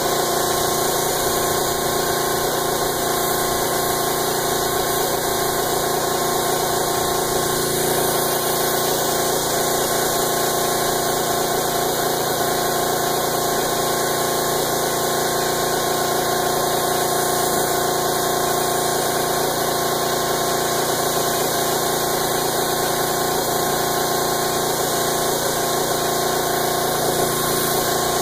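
Small tankless direct-air compressor running steadily, with the hiss of a gravity-feed spray gun laying a second coat of automotive clear coat.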